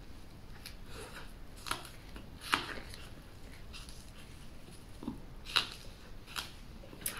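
A person biting into and chewing a rolled flatbread with fried sauce and scallion: soft, wet chewing with short, sharp mouth clicks, the loudest about two and a half and five and a half seconds in.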